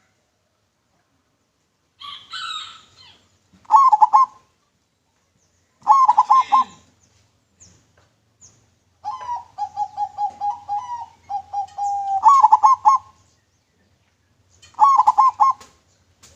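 Zebra dove (perkutut) cooing in clear, repeated bubbling phrases, starting about two seconds in, with a longer rolling coo in the middle. Higher-pitched chirps from other small birds come in between.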